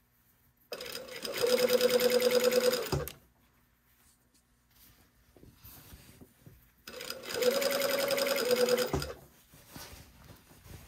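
Straight-stitch sewing machine running in two bursts of about two seconds each, topstitching a knit neckline facing, with a fast, even stitching rhythm; each burst ends in a short knock as the machine stops. Faint rustling of fabric being turned in between.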